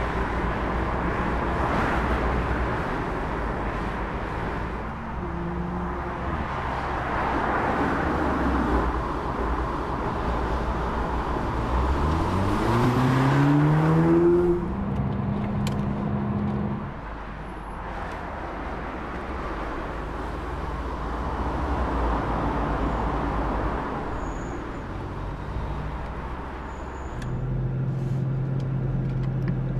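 Audi S3 sedan's turbocharged four-cylinder driving at speed over steady tyre and wind noise. About halfway through, the engine revs up in a rising pitch, holds a steady note for a couple of seconds, then drops away. Near the end a low steady engine hum sets in.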